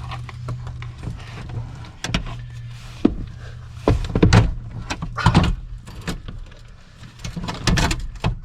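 Van driver's seat being worked back onto its floor mounts: irregular knocks, clunks and rustling scrapes as the seat frame is shifted and lined up on its bolts, over a steady low hum.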